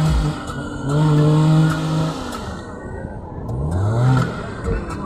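Off-road 4x4 vehicle's engine revving hard and held at high revs, easing off about two seconds in, then rising again about three and a half seconds in. Scattered sharp knocks sound over it.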